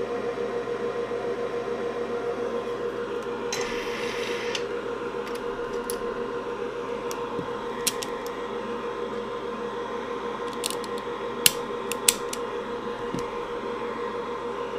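Steady fan hum from a bench fume extractor, with a short hiss about three and a half seconds in and a few sharp small clicks in the second half, the loudest two close together.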